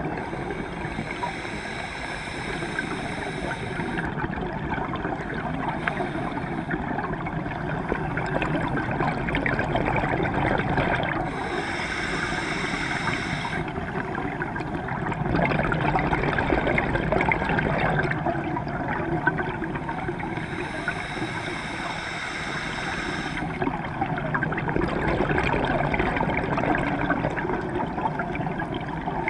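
Scuba diver breathing through a regulator, heard underwater: a hissing inhalation comes three times, each followed by a rush of gurgling exhaled bubbles, about one breath every ten seconds.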